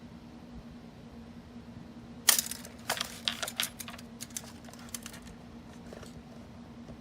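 Small hard objects being handled: a sharp click about two seconds in, then a scatter of lighter clicks and rattles for about two and a half seconds, over a steady low hum.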